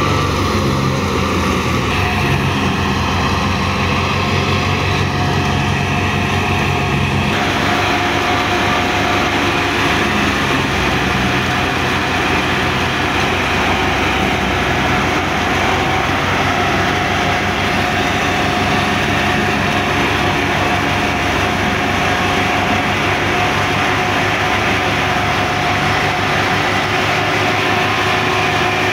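Wheat thresher running at working speed, belt-driven by a Massey Ferguson 285 tractor's diesel engine under load: a steady engine drone under the rattle and rush of the threshing drum as straw is fed in. The mix of tones shifts slightly about seven seconds in.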